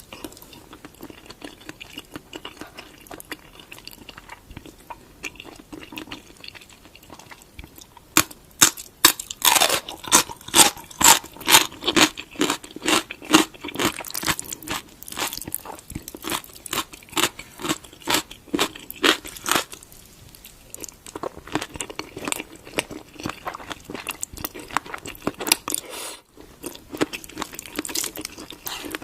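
Close-up mouth sounds of a person chewing crunchy food. Soft chewing at first, then from about eight seconds in loud, rhythmic crunching at about two bites a second for some twelve seconds, easing back to softer chewing near the end.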